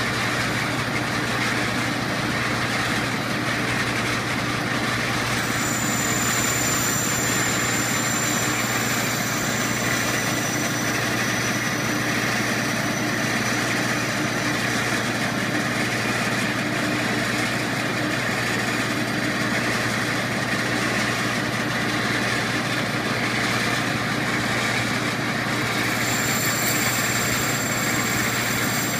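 Metal lathe running steadily while a homemade ball turner cuts a ball end on a spinning brass part, with a constant motor and gear hum. A faint thin high whine comes in twice, a few seconds in and again near the end.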